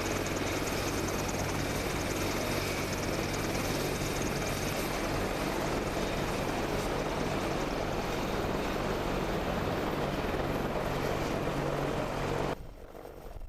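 AH-64D Apache Longbow attack helicopter running: a steady rotor and turbine noise with a low hum and a high whine. Near the end it cuts off abruptly to a much quieter background.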